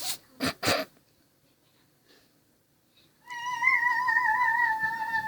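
Two short bursts of noise, then a child's long, high-pitched imitation meow, held for about two seconds with a wavering pitch.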